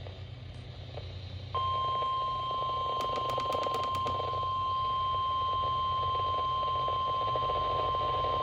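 Radio static and hum, then about one and a half seconds in the NOAA Weather Radio 1050 Hz warning alarm tone switches on: a single steady high beep that holds unbroken, the signal that an alert message is about to be broadcast. A short run of faint clicks comes through about three seconds in.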